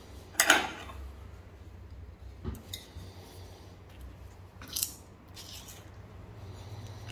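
Knife and fork cutting into crispy fried spring rolls on a wooden board: a few short crunches and clinks, the loudest about half a second in.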